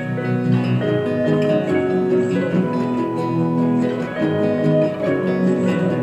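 Acoustic guitar music: plucked and strummed chords that change about every second.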